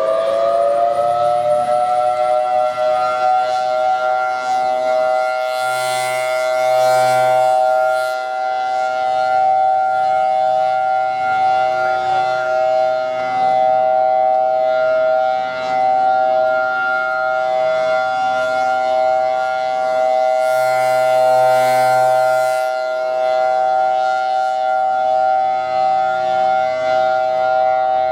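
Federal Signal Thunderbolt 1003 outdoor warning siren sounding a steady alert: it finishes winding up to full pitch about a second in, then holds a steady two-note chord. The sound swells louder twice, about 15 seconds apart, as the rotating siren head sweeps past.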